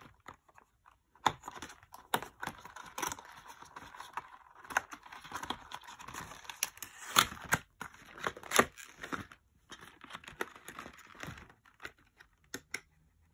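A cardboard box and its packaging being handled and opened: irregular sharp taps, scrapes and rustling of card and paper.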